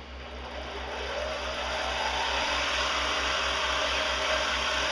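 Benchtop milling machine's spindle motor starting up in reverse and winding up over about two seconds, a rising whine that then holds steady. This is its break-in run at top speed, 2000 RPM.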